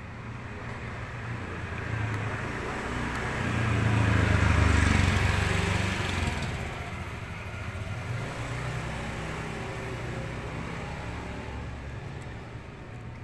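A motor vehicle's engine passing by, growing louder to a peak about four to five seconds in, then fading away into a lower engine hum.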